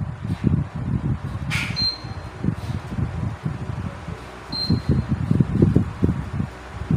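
Asahi electric wall fan running on speed 1, its airflow buffeting the microphone in uneven gusts. Two short high beeps sound, about two seconds and four and a half seconds in.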